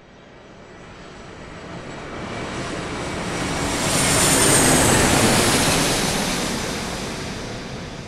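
Airplane flying past: the engine noise swells up, peaks about halfway through and fades away, with a high whine that drops slightly in pitch as the aircraft passes.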